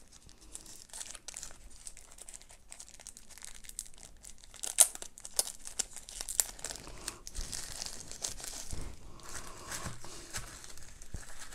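Thin plastic wrapping crinkling and rustling as it is pulled off a wireless earbuds charging case, with scattered sharp crackles.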